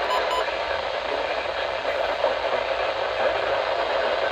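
Steady radio static hiss from a receiver with no broadcast audio, with two short beeps just after the start.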